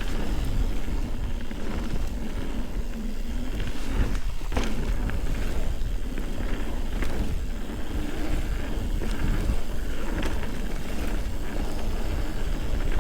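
Ibis Ripley full-suspension mountain bike rolling downhill on a dirt trail: tyre noise with frequent small knocks and rattles of the bike over the ground, and a steady low wind rumble on the camera microphone. One sharper knock comes about four and a half seconds in.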